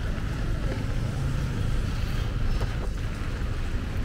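Busy street traffic on a rain-wet road: a steady rumble of engines with tyres hissing through the water, in light rain.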